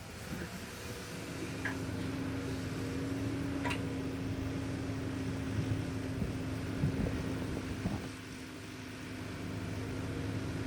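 Excavator running with a steady hum over a low rumble, with a few short knocks and clunks of the working machine in the second half.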